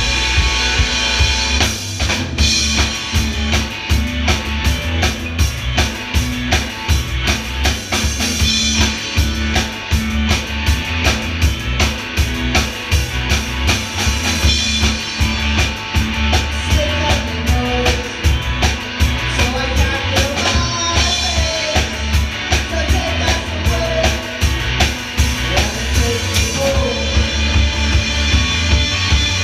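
Live rock band playing instrumentally: electric guitars over fast, steady drum-kit beats with a heavy low end. A higher melodic line wavers above the band from about halfway through until near the end.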